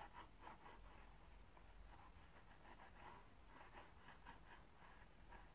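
Near silence, with faint irregular scratches as the nozzle of a liquid glue bottle is dabbed along folded paper card stock.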